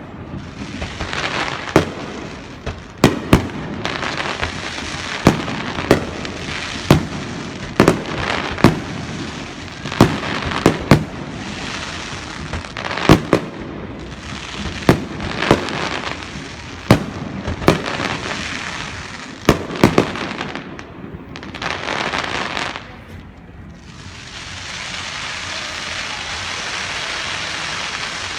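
Aerial fireworks bursting, with a sharp bang every second or two over a continuous crackle. The bangs stop about twenty seconds in, and after a brief lull a steady hiss takes over.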